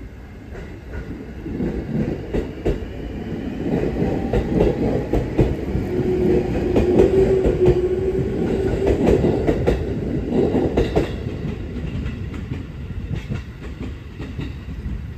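E751-series limited express electric train pulling out and passing close by. Its wheels click over rail joints and the sound builds to a peak about six to eleven seconds in, with a steady motor tone in the middle, then eases as it moves away.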